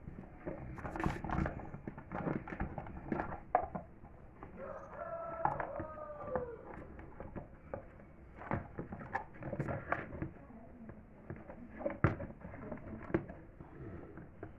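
Scattered clicks and knocks, with a drawn-out animal call of about two seconds near the middle.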